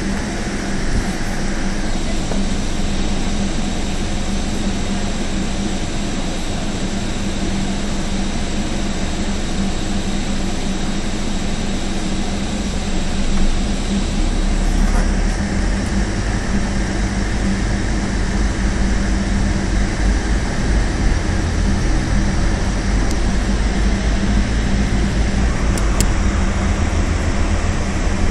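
Scania OmniCity double-decker bus heard from inside while under way: a steady engine and drivetrain drone with a constant hum, and a deeper rumble that builds from about halfway through as the bus speeds up.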